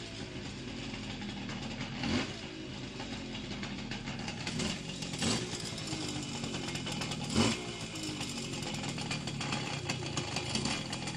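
Simson moped's two-stroke engine idling, blipped about three times, the pitch falling back after each blip as the revs drop. This is the coming-down-from-revs sound in which the owner hears strange noises.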